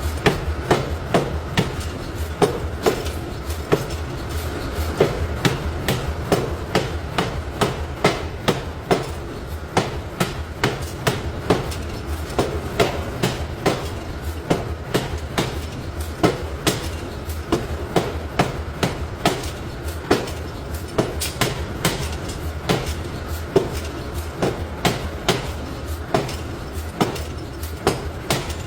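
Metal being struck over and over in a forge shop, sharp clanging blows about two a second at an uneven pace, over a steady low rumble of running machinery.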